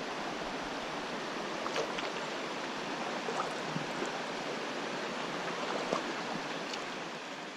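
Steady rush of creek water running over a riffle, with a few faint clicks on top.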